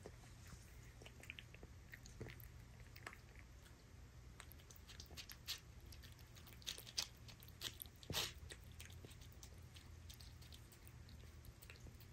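A cat chewing wet canned sardine cat food from a paper plate: faint, irregular wet chewing clicks, busiest around the middle, with the loudest bite about two-thirds of the way through.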